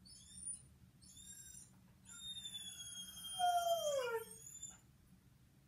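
Borzoi howling: two short high cries, then one long howl about two seconds in that drops in pitch near its end.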